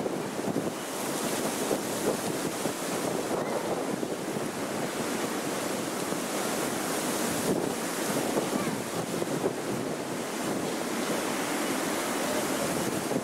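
Strong gusty wind blowing and buffeting the microphone: a steady rushing noise that swells and eases with the gusts.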